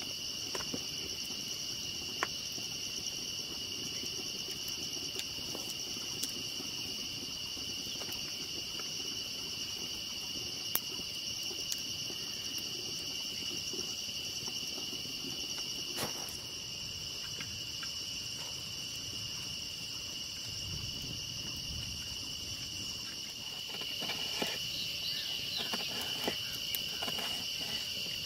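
Steady chorus of insects chirring at two high pitches without a break, with scattered faint clicks and taps that grow busier in the last few seconds.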